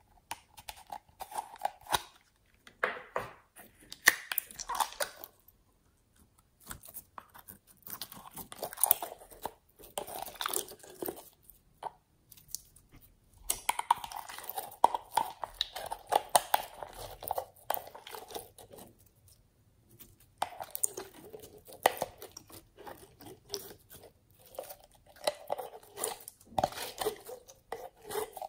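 A plastic slime jar being handled and its lid twisted off, then clear red slime pulled out of it, with irregular sticky crackles, clicks and squishes in bursts separated by short pauses.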